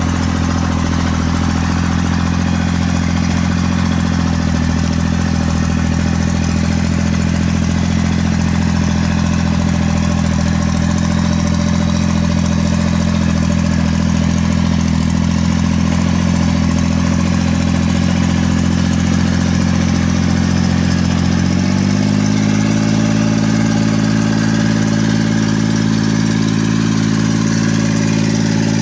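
Engine of a small tracked rice carrier running steadily as it hauls a full load of rice sacks, its pitch stepping up slightly about three-quarters of the way through.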